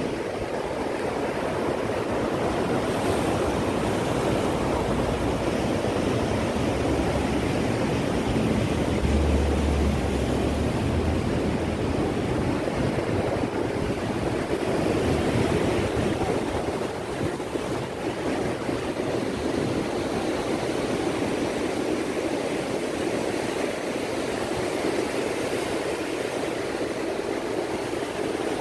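Ocean surf breaking over a rocky shore: a steady wash of waves that swells and eases, with a brief low rumble about nine seconds in.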